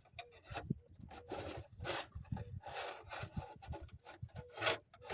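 Irregular rubbing and scraping, a run of short scratchy strokes of handling noise as hands work at something in a tight space.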